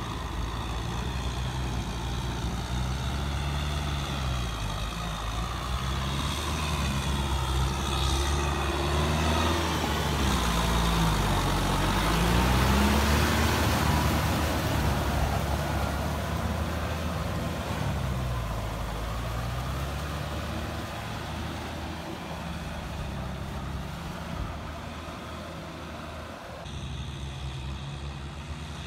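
Kubota M6040SU diesel tractor engines running under load while tilling a flooded rice paddy, their pitch rising and falling as the drivers work the throttle. The sound is loudest about halfway through, as a tractor and its rotary tiller pass close by.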